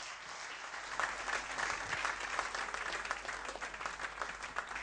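Audience applauding: many hands clapping, a little stronger from about a second in.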